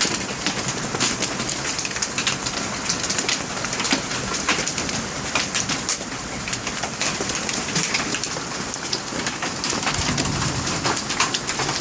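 Hail falling with heavy rain: a steady hiss thick with sharp clattering hits.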